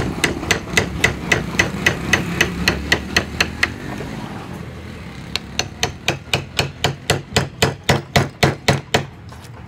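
A mallet tapping a carving chisel into wood in quick, even strokes, about three or four a second. There is a low rumble underneath at first. The tapping pauses about four seconds in, then resumes a little faster and stops just before the end.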